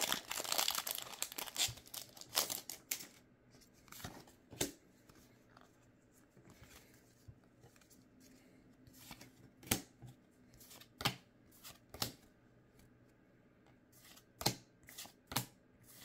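Foil wrapper of a Pokémon booster pack being torn open and crinkling for about the first second and a half. Then scattered light clicks and flicks as the trading cards inside are squared up and flipped through one at a time.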